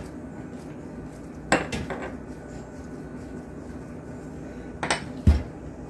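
Hands shaping dough balls on a stone countertop, with a few sharp knocks and clinks against the counter about a second and a half in and near the end, followed by a heavier low thump.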